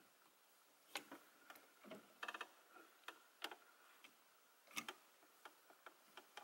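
Clothes hangers clicking and ticking against each other and the closet rod as shirts are pushed aside one by one: faint, irregular sharp clicks, with a quick cluster about two seconds in.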